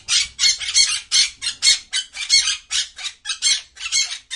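Parrot squawking: a fast run of short, harsh squawks, about four a second.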